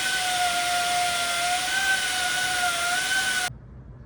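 Grinder running with a steady high whine over a loud hiss, shaving down metal so a part will fit further in; it cuts off abruptly about three and a half seconds in.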